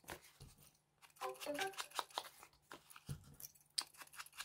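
Short phone notification chime, a quick run of pitched tones about a second in, from a car-tracking app signalling that the tracked car is on the move. Light taps and rustles of paper handling sound around it.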